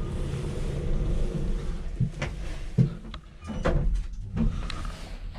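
Kone EcoDisc passenger lift's doors sliding shut and the car setting off, with several clunks over a low steady hum.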